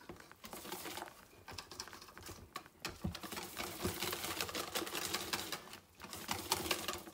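Wire balloon whisk beating pancake batter in a stainless steel bowl: fast rhythmic clicking and swishing as the tines strike the bowl, with a short pause about six seconds in.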